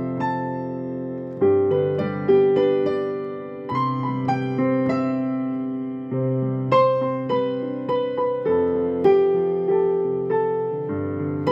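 Background music: solo piano playing slow chords with a melody above, each note struck and fading away.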